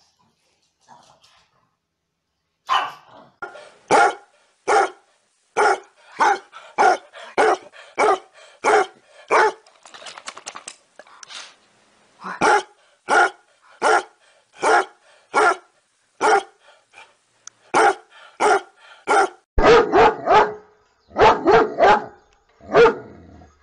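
Dogs barking: a long run of single barks at an even pace of about one and a half a second, then, near the end, louder barks coming in quick clusters of several at a time.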